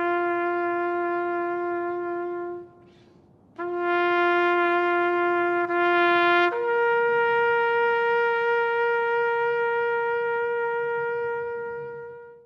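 A brass horn sounds a slow salute call in long held notes: one note held for a couple of seconds, a short break, the same note again, then a step up to a higher note held for about six seconds that fades away near the end.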